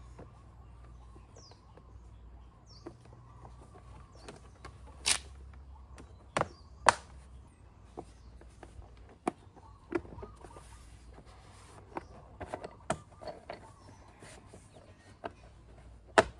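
Genuine Hooligan 170 scooter's plastic side covers knocking and clicking as they are handled and pressed into place on the floorboard frame: scattered sharp clicks and taps, the loudest about seven seconds in and near the end.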